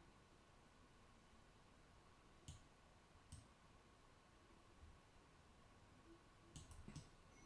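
Faint computer mouse clicks in a quiet room: two single clicks a little under a second apart, then a quick run of about four near the end.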